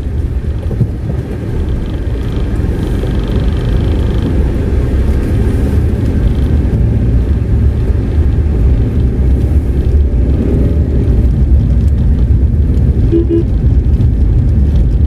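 Tata Nexon SUV driving, heard from inside the cabin: a steady low rumble of engine and tyres on the road. A brief horn toot sounds near the end.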